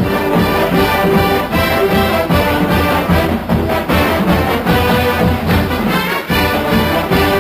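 Intro theme music with a steady beat and held notes.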